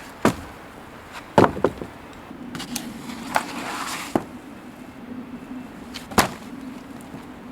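Sawn wooden slabs being handled: a few sharp wooden knocks and clatters, a quick cluster of them about a second and a half in. A faint steady hum comes in about two seconds in.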